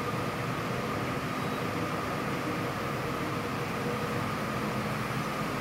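Steady din of circular looms weaving polypropylene tape into woven-bag fabric, an even machine noise with a constant humming tone and no change in pace.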